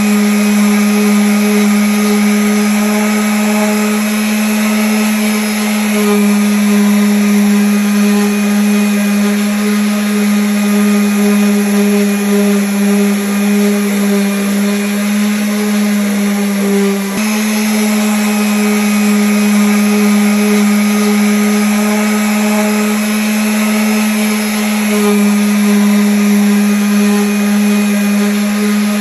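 Electric sander running against wood, a steady hum that falters briefly about seventeen seconds in.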